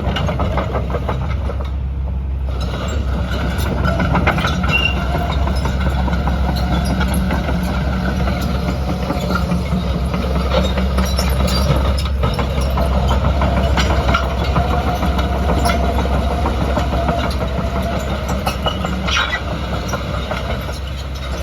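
2017 JCB JS130LC+ tracked excavator's diesel engine running steadily, with irregular metallic clicks and clanks over it and a couple of brief high squeaks.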